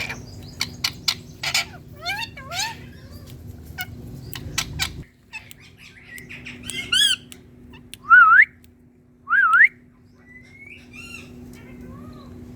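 Indian ringneck parrot calling: a run of quick clicks and chirps, then squawks and two loud whistles that dip and sweep upward, about a second and a half apart.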